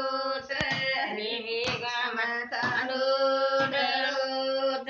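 Elderly women singing a traditional Banjara folk song unaccompanied, in long, drawn-out held notes with short breaks between phrases.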